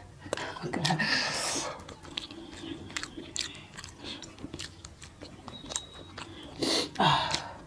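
Close mouth sounds of a man eating with his hand: chewing and lip-smacking clicks, with a longer sucking sound about a second in as he licks food off his fingers.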